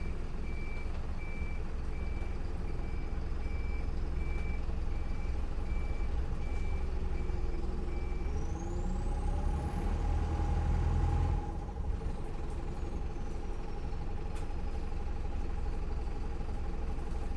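Bus engine running with its reverse-warning beeper sounding about twice a second for the first eight seconds or so. The engine then pulls away with a rising whine that climbs to a peak about 11 seconds in, drops off sharply, and the bus runs on steadily.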